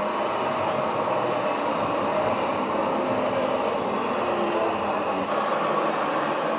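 Radio-controlled model trucks running: a steady mechanical whir from their small motors and drivetrains, easing slightly in the low end about five seconds in.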